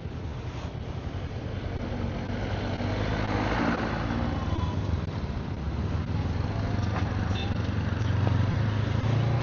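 Motorcycle engine running with road and wind noise, heard through a microphone inside the rider's helmet, growing gradually louder.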